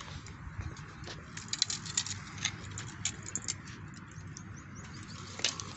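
Irregular light clicks and ticks, clustered in places, over a low steady rumble.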